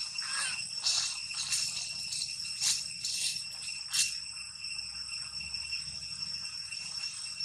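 Steady high-pitched insect drone, with a few short sharp rustles or clicks in the first four seconds.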